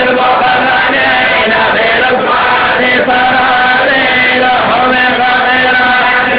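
A group of male voices chanting Quranic recitation together in unison, a continuous, drawn-out melodic chant with long held notes.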